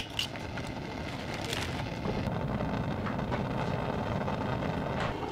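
Small gas forge's burner running with a steady hiss while a knife's tang is heated in its blue flame.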